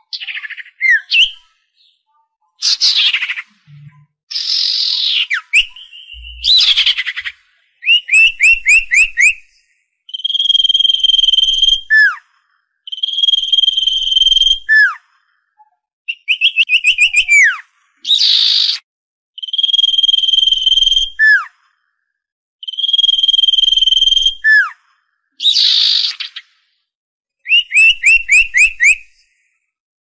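Common iora song: clear, drawn-out whistles held on one steady pitch for over a second each, alternating with quick runs of five or six short notes, single sharp notes falling in pitch, and a few harsher rasping notes, in a repeating cycle.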